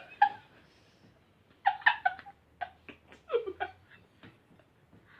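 Short, high-pitched nonverbal vocal sounds from a person, in two quick clusters of brief bursts, reacting to a disgusting-tasting jelly bean.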